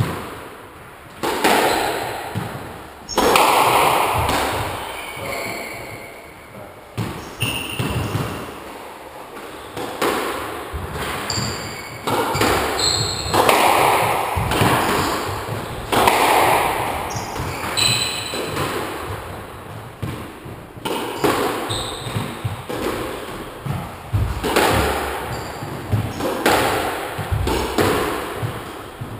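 Squash rally: the ball cracking off rackets and smacking the court walls every second or two, each hit echoing in the enclosed court, with a few short squeaks of shoes on the wooden floor.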